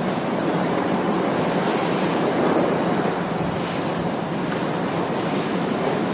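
Blowing air: a steady, continuous rushing hiss with no breaks or changes in pitch.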